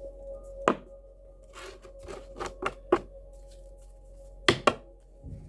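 Tarot cards being shuffled and handled: a run of sharp card snaps and riffles, loudest about a second in and twice in quick succession near the end, over a steady ambient music drone.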